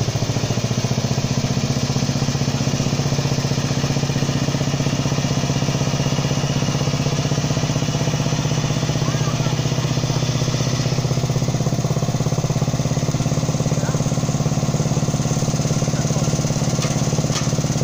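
Riding lawn tractor's small petrol engine running steadily at a constant speed; its upper hiss drops a little about eleven seconds in.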